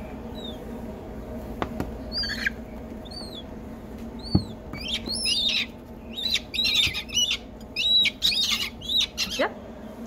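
Downy herring gull chicks peeping in short high calls. A few single peeps come first, then many overlapping peeps from about halfway through. A sharp knock comes just before the calls thicken.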